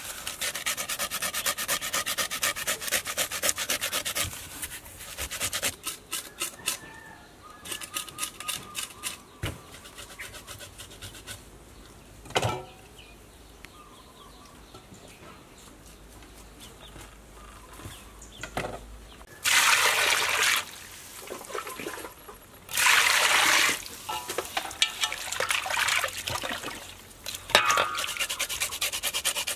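Hands rubbing salt into raw fish steaks in a metal basin, with rapid wet scraping strokes. Two louder spells of scraping come about 20 and 23 seconds in.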